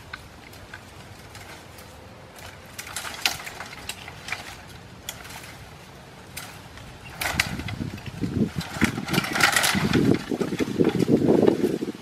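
Dry branches and twigs rustling, cracking and snapping as they are pushed and pulled by hand, in irregular bursts that grow louder and denser from about seven seconds in.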